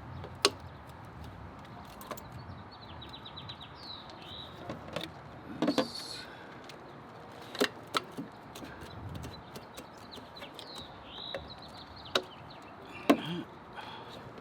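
Scattered sharp clicks and knocks of tools and plastic intake parts being handled and fitted, about six in all, the loudest near the start and toward the end. Birds chirp in quick trills in the background twice.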